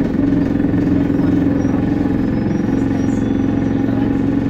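Wright Streetlite single-decker bus's engine and drivetrain running with a steady drone, heard from inside the passenger saloon.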